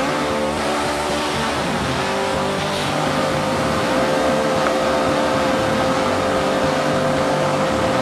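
Craftsman 9-gallon 4.25 peak HP wet/dry shop vac running with a steady whine while its hose nozzle is held to a 2-pound dumbbell and sucks it up.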